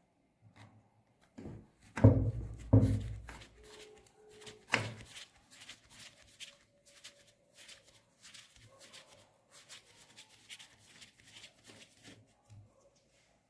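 Screwdriver working the rusty screw of a clamp band on a steel air gun barrel held in a bench vise. There are two heavy knocks about two seconds in and a sharp click near five seconds, then a long run of light, irregular clicks and scrapes of the blade on the screw head.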